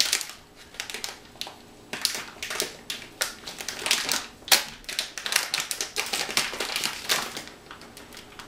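Foil-lined paper bag of flax seeds crinkling and crackling in quick, irregular clicks as it is pulled open by hand, dying down about seven seconds in.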